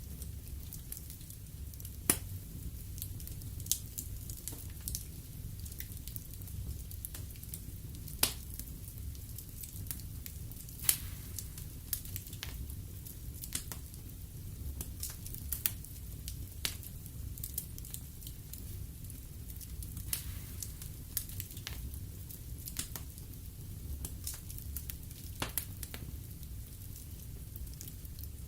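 Wood fire burning in a fireplace: a steady low rumble of flames with irregular crackles and pops from the burning logs, the sharpest pops about 2, 8 and 11 seconds in.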